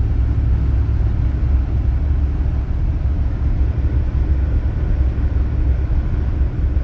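Steady low rumble of a four-wheel-drive vehicle driving slowly through snow, heard from inside the cab.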